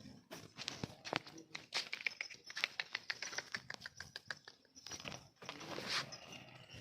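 Irregular crunching and rustling clicks, many short crackles in quick succession, with a denser stretch of rustling near the end.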